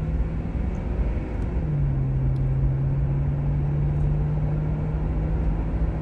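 Car heard from inside its cabin pulling away and driving on a wet road: a deep road rumble and tyre noise, with a steady low engine hum that shifts briefly in pitch about a second and a half in.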